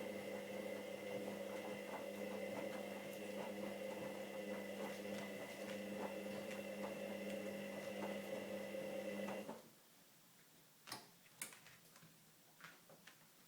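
Candy Grando washing machine running a drum tumble early in a 40° cotton wash: a steady motor hum with faint ticks that cuts off suddenly about nine and a half seconds in. A few faint clicks follow.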